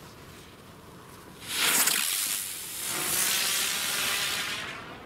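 Sonnenvogel spinning firework going off: about a second and a half in it bursts into a loud hiss of spraying sparks that dips briefly, swells again and fades out near the end.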